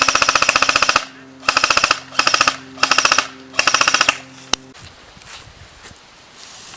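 Airsoft gun firing on full auto in five rapid bursts, the first about a second long and the next four shorter, followed by a single sharp click. The clatter is the fast cycling of the gun's gearbox.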